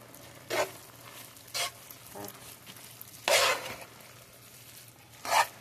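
Vegetable fried rice being stirred in a hot pan: four short scraping stirs, the loudest about three seconds in, over a faint sizzle of frying.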